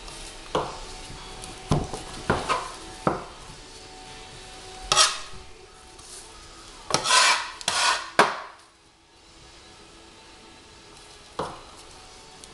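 A flat steel soap cutter blade working through a fresh soap log in a wooden cutting box. There are several sharp knocks of the blade and soap against the wood, and a few longer scrapes as the log is pushed along the box.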